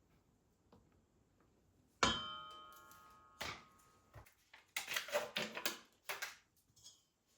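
Kitchenware being handled: a hard object is set down with a ringing clang about two seconds in that fades over a second or so, followed by a few knocks and a short run of clattering.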